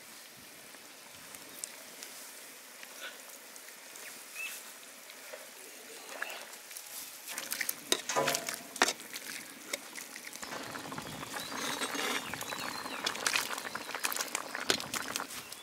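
Spiced fish gravy cooking in a pot, a steady sizzle with scattered clinks and scrapes from a stirring utensil that become busier and louder over the second half.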